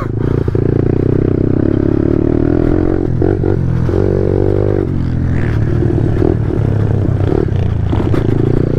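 Pit bike engine running while riding on dirt, the revs rising and easing several times with the throttle, with a brief climb about four seconds in.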